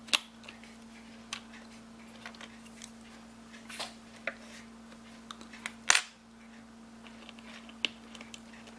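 Small metal tools clicking and tapping on a quartz watch movement while its button-cell battery is taken out and a new one fitted. There is a sharp click just after the start and a louder double click about six seconds in, with lighter ticks scattered between.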